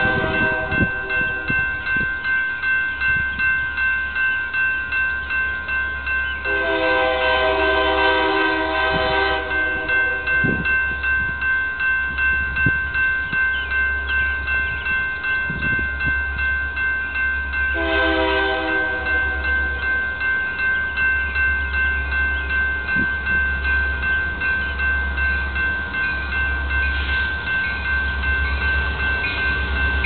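Grade-crossing bell clanging in a steady rhythm, with the horn of an approaching Union Pacific SD70M locomotive sounding from a distance. The horn gives a long blast about six seconds in, a shorter blast around eighteen seconds, and another that starts near the end as the train draws close.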